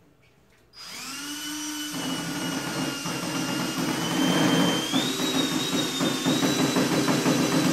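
Cordless drill starting about a second in, its motor whine rising as it spins up, then running steadily under load as it bores into a wooden board.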